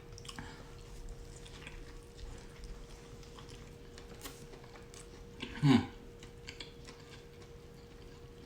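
Close-miked chewing and crunching of a crispy fried chicken sandwich, with small mouth clicks. Just after halfway comes one short voiced sound falling in pitch, and a faint steady hum sits underneath.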